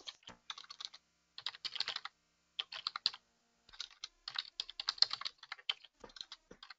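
Computer keyboard typing: rapid keystrokes in uneven bursts with short pauses between them.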